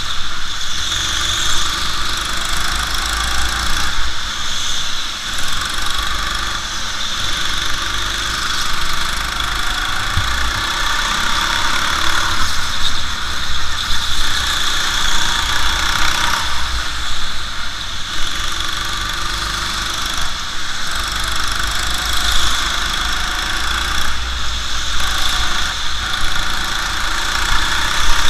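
Go-kart engine running under load, heard from on board the kart, swelling and easing every few seconds as the throttle is opened and lifted through the corners.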